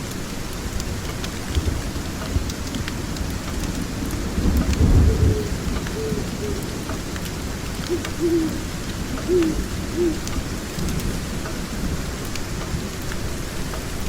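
Ambience of steady rain with a low roll of thunder swelling about four to five seconds in, an owl hooting several times in the second half, and scattered crackles of a wood fire.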